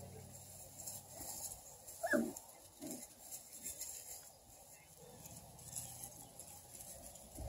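A six-week-old beagle puppy gives a short yelp about two seconds in, dropping steeply in pitch, followed by a shorter, lower whine.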